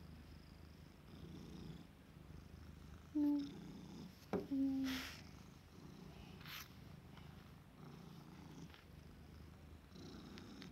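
Tabby cat purring contentedly while being brushed, the low purr coming in regular pulses a little over a second apart. Two short hum-like tones near the middle are the loudest moments.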